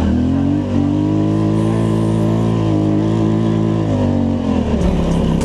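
Polaris Scrambler ATV engine under throttle: it revs up right at the start, holds a steady high pitch, then drops back a little after four seconds in.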